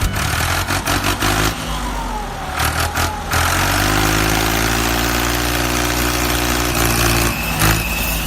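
A motor vehicle engine running, noisy and clattering for the first few seconds, then holding a steady note for about four seconds.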